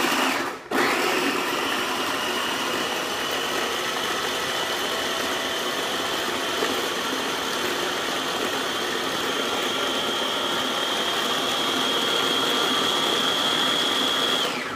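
Small electric mini food processor chopping garlic cloves with salt and egg white into a paste. A brief pulse, a short stop, then the motor runs steadily with a whine that creeps slightly higher, before cutting off near the end.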